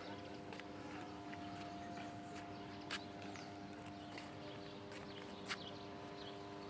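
Faint outdoor ambience: a steady low hum at several pitches, with scattered sharp ticks and brief high chirps.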